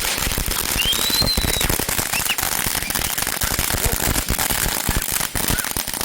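Consumer fireworks crackling: a rapid, dense run of small sharp pops that starts suddenly.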